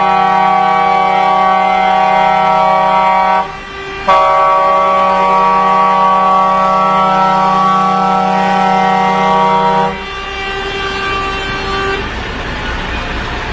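Truck air horns sounding a chord of several steady tones in two long blasts, the first about three seconds, then after a brief break a second of about six seconds. One tone carries on more faintly for another two seconds before the MAN TGX 18.440's diesel engine is heard running.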